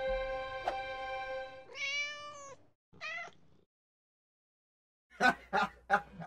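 Cat meowing: two drawn-out meows with wavering pitch, then three short ones close together near the end, just after background music stops.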